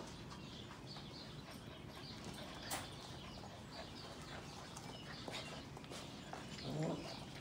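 Sheepadoodle puppies playing, with faint high squeaks and yips scattered throughout. There is a sharp click a little under three seconds in, and a louder short puppy cry near the end.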